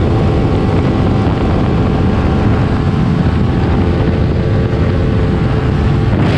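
Kawasaki Ninja 400's parallel-twin engine running steadily at highway cruising speed, with heavy wind noise over the microphone.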